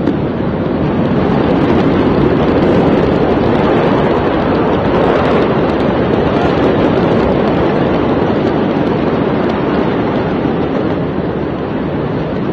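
Steady, loud rushing roar of a large fire burning at a distance, with faint crackles and wind on the phone's microphone; it swells in the first couple of seconds and then holds.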